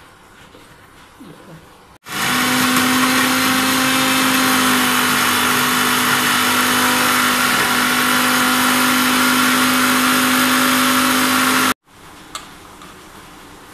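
Bajaj Majesty electric mixer grinder running with a steel jar, grinding onion and garlic into a paste: a loud, steady whirr with a constant hum. It starts about two seconds in and stops abruptly about ten seconds later.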